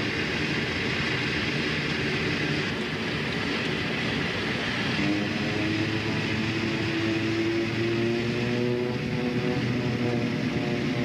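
Fokker 50 turboprop airliner in flight: a steady drone of engines and propellers. About halfway through, one tone rises slowly in pitch.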